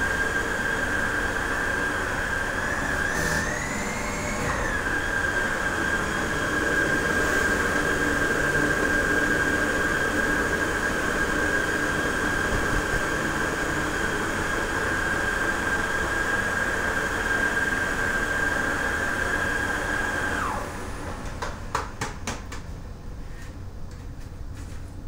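Vacuum cleaner motor running with a steady high whine and rushing air, its pitch rising briefly about four seconds in. About twenty seconds in it is switched off and the whine falls away, followed by a few clicks.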